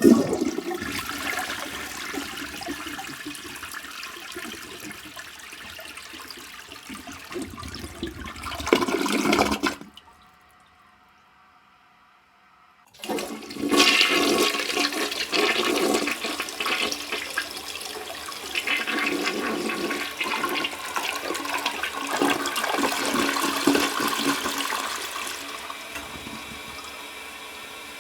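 Two toilet flushes. The first starts abruptly, surges louder about nine seconds in and cuts off; after about three seconds of quiet, a second flush rushes for about twelve seconds and fades into a faint steady hiss.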